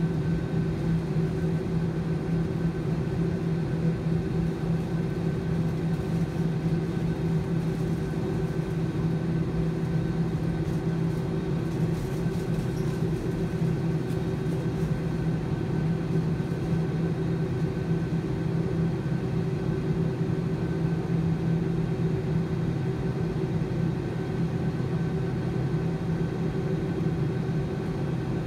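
Steady cabin drone of a jet airliner taxiing after landing, its turbofan engines at idle: a constant low hum with a faint high whine above it.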